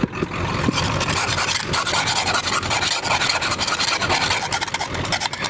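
Stiff-bristled snow brush scrubbing frost and ice off the plastic lens of a truck's off-road light in rapid back-and-forth strokes.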